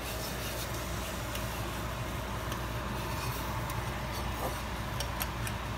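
Spoon stirring barbecue sauce in a small metal saucepan, with a few light clicks against the pan, clustered near the end. A steady low rumble runs beneath it.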